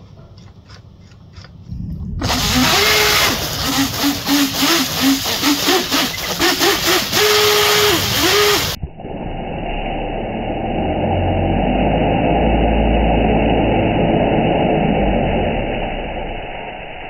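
Radio-controlled jet boat's electric motor and jet pump run in bursts, the motor whine rising and falling several times as the throttle is worked, with splashing spray. After about nine seconds this gives way to a steadier rush of water from the jet that swells and then fades.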